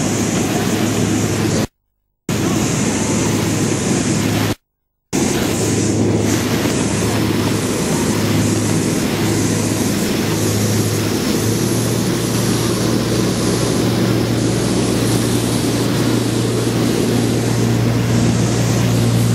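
Steady drone of jet aircraft running on an airport apron, with a low hum that grows louder a little past halfway through. The sound cuts out completely twice near the start.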